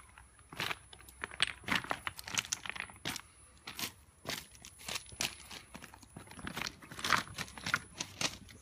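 Loose broken stones crunching and clicking against each other in an irregular run of sharp crunches, several a second at times.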